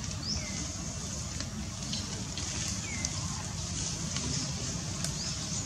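Outdoor ambience: a steady low rumble with short, high chirping calls, some rising and some falling, several times over a few seconds, and a few faint clicks.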